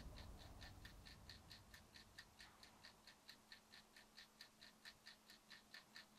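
Clock ticking faintly with quick, even ticks.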